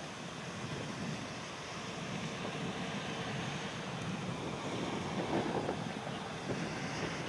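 Boeing 757's Rolls-Royce RB211-535 turbofans at takeoff power, the steady jet noise of the airliner accelerating down the runway, heard at a distance with wind on the microphone.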